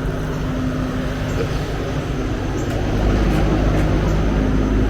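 Steady low machine hum with a low rumble that gets louder about three seconds in.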